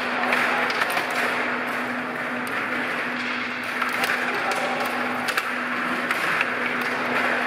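Stiga rod table hockey in play: a fast, irregular clatter of the plastic control rods being spun and pushed, with the puck and plastic players clicking and knocking against each other and the boards. A steady low hum sits underneath.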